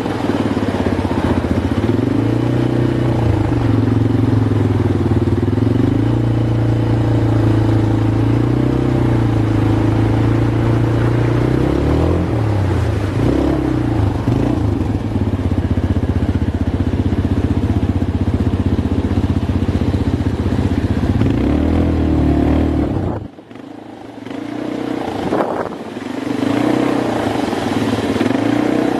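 ATV engine running under way, its pitch rising and falling with the throttle. About 23 seconds in the sound drops away sharply for a couple of seconds, then the engine comes back.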